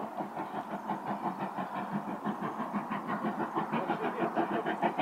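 Steam locomotive exhaust chuffing in a rapid, even rhythm, growing louder as the train approaches.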